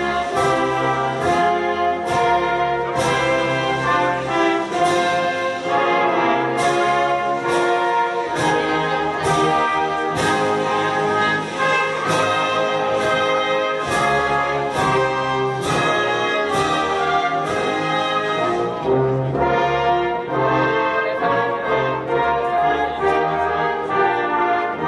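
Orchestral music led by brass instruments, playing held chords.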